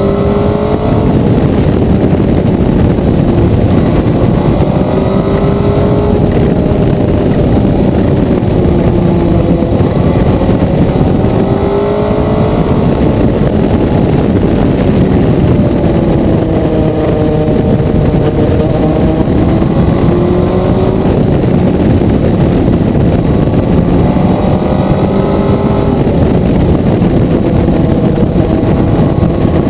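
Motorcycle engine running under way, its pitch rising and falling again and again as the throttle is opened and closed, over a steady rushing noise.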